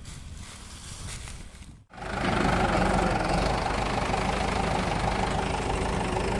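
A heavy vehicle's engine running steadily, loud and constant, starting abruptly about two seconds in after a quieter stretch.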